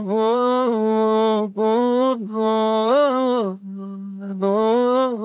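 A male voice singing long, drawn-out notes with no clear words. The notes come in phrases of about a second, broken by short breaths, with a softer held note about four seconds in.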